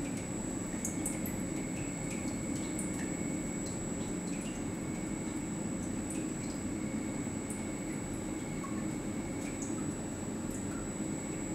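Watson-Marlow peristaltic chlorine dosing pump running steadily during a flow calibration, a low hum with a thin high tone over it and scattered faint ticks.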